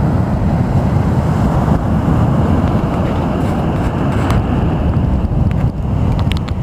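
Wind buffeting the microphone in a loud, steady low rumble, over sea waves washing on the shore.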